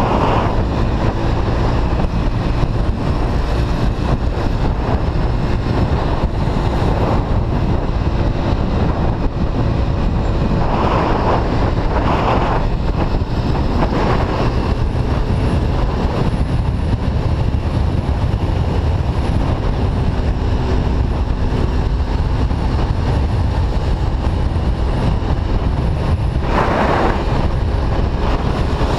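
Steady wind and road rumble from riding a Honda Lead scooter at speed through traffic, the scooter's engine running under the wind. A few brief louder rushes come a little before halfway and near the end.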